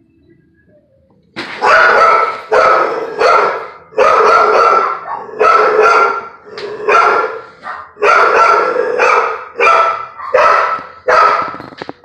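Pit bull barking repeatedly: about a dozen loud barks starting a little over a second in, some of them drawn out.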